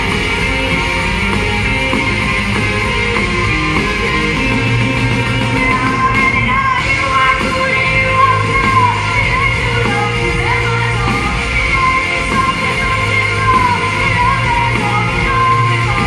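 Live rock band playing: a female lead singer over acoustic guitar, electric guitar, bass and drums, with her voice coming in about four seconds in. It is heard from the audience in a large hall.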